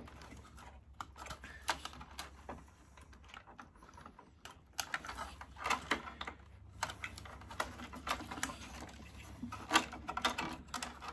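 Irregular light clicks and taps of plastic wire connectors being pushed onto a mini split indoor unit's control circuit board as it is handled, with a denser run of clicks from about five seconds in.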